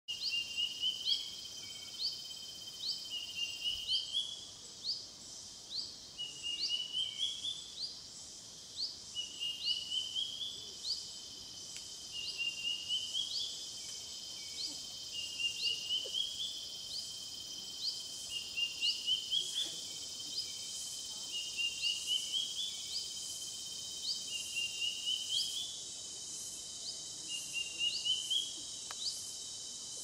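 Evening wildlife chorus: a steady high insect trill with quick high chirps about twice a second, and a short rising call repeating about every three seconds.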